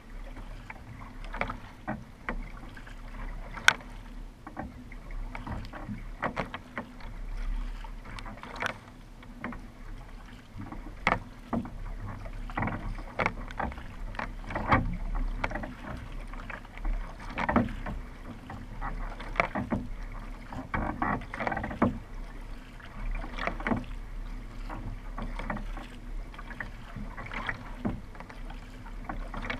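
Kayak paddle blades catching and splashing in the water, stroke after stroke on alternate sides, about once a second, over a steady low rumble.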